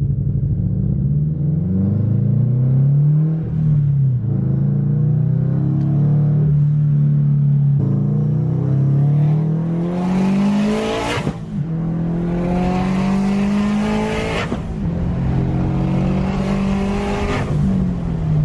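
Subaru WRX's turbocharged flat-four engine accelerating through the gears, heard from inside the cabin. Its note climbs under throttle and drops back at each gear change, about five times. A rushing hiss joins the harder pulls in the second half.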